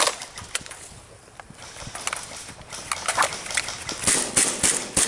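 Hurried footsteps with rustling and scattered sharp knocks, in irregular runs that grow denser about two seconds in and again about four seconds in.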